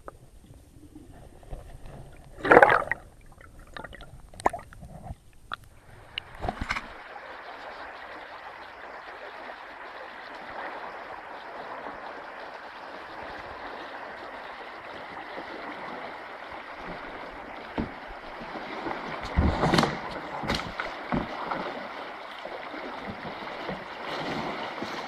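A few sharp knocks at first, then, from about seven seconds in, the steady rush of river current flowing close to the water-level microphone. Several more knocks come around twenty seconds in.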